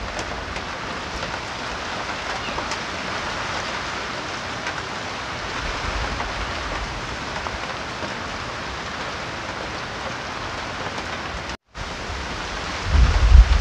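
Heavy typhoon rain and wind making a steady hiss. Near the end, strong gusts buffet the microphone with low rumbling, the loudest part, after the sound cuts out for a moment.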